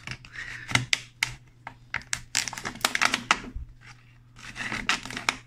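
Scissors snipping and working at the thin PET plastic of a bottle's base, with irregular sharp clicks and the plastic crinkling and crackling as it is squeezed and cut. The sounds thin out for a moment about four seconds in, then pick up again.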